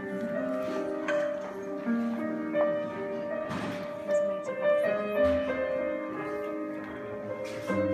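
Instrumental music: a melody of held notes over sustained chords, with a few light clicks.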